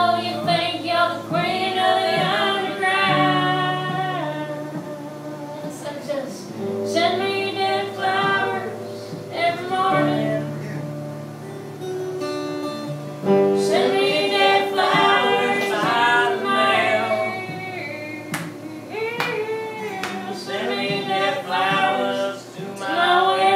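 A woman singing phrases over a strummed steel-string acoustic guitar, with short instrumental gaps between the lines.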